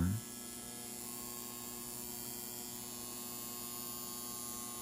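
Steady low electrical mains hum, unchanging throughout.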